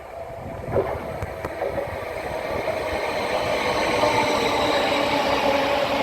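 A train approaching, its running sound growing steadily louder with a steady whine of several tones.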